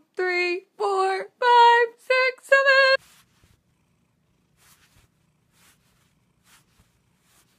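A high-pitched voice counts aloud in drawn-out, sing-song syllables for about three seconds. It then stops abruptly, leaving near silence with a few faint clicks.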